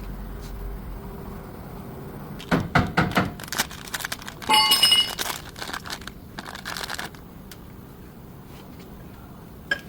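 Metal tools and parts being handled: a quick run of sharp knocks and clatter, then a ringing metallic clink like a steel tool set down, followed by lighter rattles.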